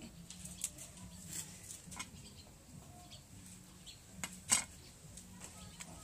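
Scattered light clicks and knocks from raw shrimp and squid being handled and cleaned in a plastic basin, with one louder knock about four and a half seconds in. A few faint short chirps sound in the background.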